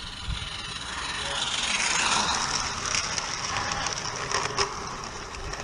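A 16mm-scale live steam garden train passing close by at rail level. A rush of noise builds and peaks about two seconds in as the locomotive goes past, then the wagons rattle and click over the track.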